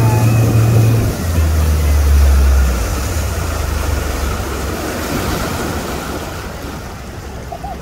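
Towing motorboat's engine running, then throttled back about a second in: its low drone drops in pitch and fades away as the boat slows. Rushing wake water and wind on the microphone carry on, slowly getting quieter.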